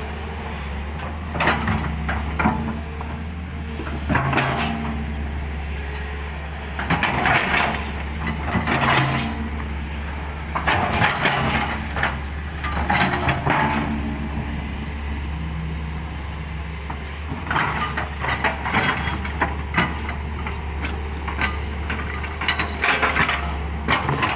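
Excavator diesel engine running steadily under a steady hum while it works, with irregular bursts of harsher clattering noise every few seconds.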